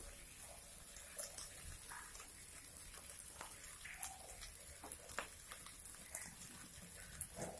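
Faint sizzling and crackling of fried rice cooking in a wok on a gas flame, with a few light clicks scattered through.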